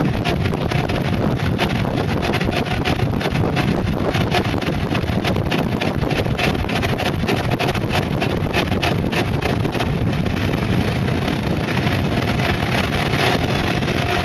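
Wind rushing and buffeting on the microphone, with road noise from a mountainboard's pneumatic tyres rolling fast down asphalt.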